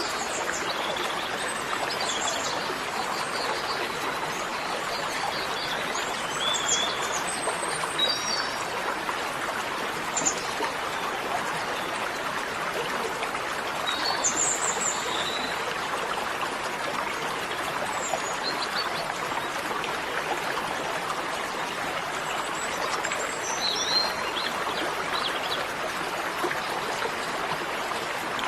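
Steady rush of a flowing stream, with small birds chirping briefly now and then throughout.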